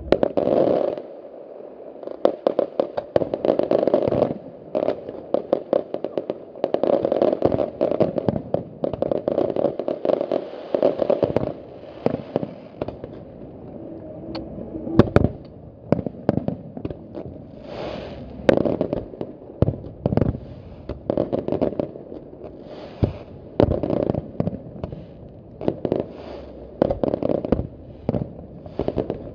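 Aerial fireworks going off in quick succession: rapid crackling and popping with repeated bangs from bursting shells, the loudest bangs about halfway through.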